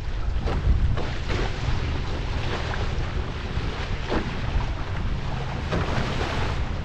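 Wind buffeting the microphone over water rushing and splashing along the hull of a one-person outrigger canoe, with short splashes from paddle strokes and spray about every second or so.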